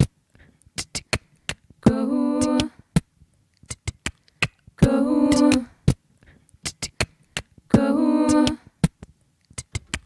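A woman's voice singing a short, held, wordless a cappella figure three times, about every three seconds, each note stepping up in pitch partway through. Sharp percussive clicks keep time between the notes.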